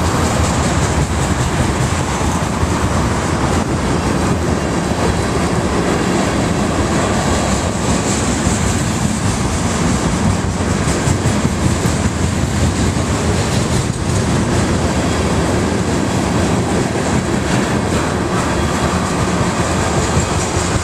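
Freight train of tank cars rolling past at close range: a steady, loud rumble of steel wheels on the rails, with occasional clicks as the wheels cross rail joints.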